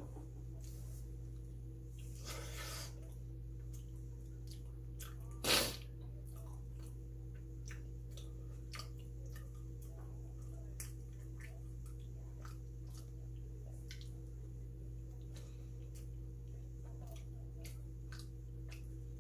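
Quiet chewing and small mouth clicks of a person eating bungeoppang, over a steady low electrical hum. A short, louder rush of noise comes about five and a half seconds in, with a softer one around two to three seconds in.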